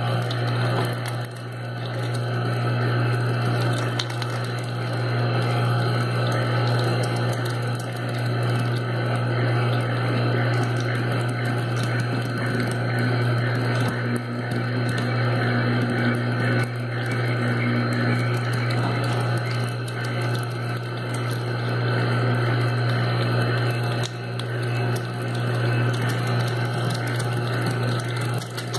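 Small domestic electric meat grinder running steadily with a low hum while it grinds pork through a coarse plate.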